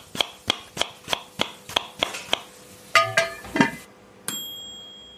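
Outro sound effect: a run of even ticks, about three a second, then two pitched clinks, then a single bright ding that rings on.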